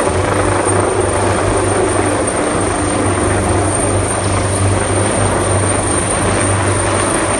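Search-and-rescue helicopter hovering close overhead, its rotor and turbine noise loud and steady throughout.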